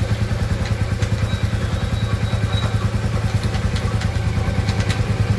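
Motorcycle engine idling steadily, a low hum with a fast, even pulse, with a few light clicks over it.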